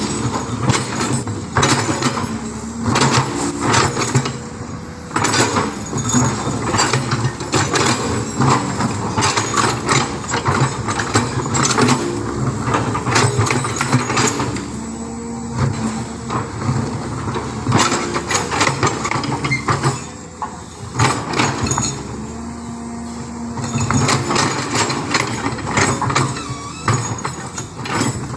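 Heavy diesel engine running steadily at close range, with many sharp knocks and clatters over it throughout.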